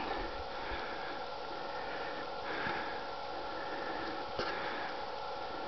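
Steady background hiss with a faint hum, and a soft sniff from the person filming about two and a half seconds in; a small click follows about four and a half seconds in.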